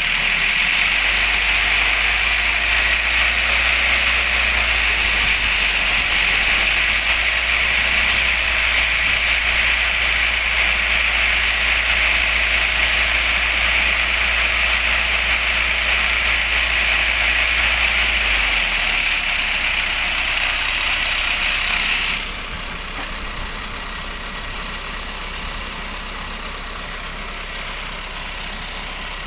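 Heavy machine engine running steadily with a loud high-pitched hiss over it; the low hum fades out about two-thirds of the way through, and the high hiss cuts off suddenly a few seconds later, leaving a quieter engine sound.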